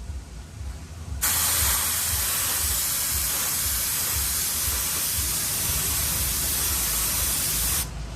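Paint being sprayed onto a repaired alloy wheel to check the colour match: one steady spray hiss that starts about a second in and cuts off sharply near the end, over a steady low rumble.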